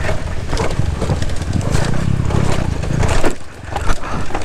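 Kawasaki KLX 140G dirt bike's single-cylinder four-stroke engine running as the bike rides over a rocky trail, with repeated knocks and clatters of the tyres and suspension hitting rocks. The noise drops briefly about three and a half seconds in.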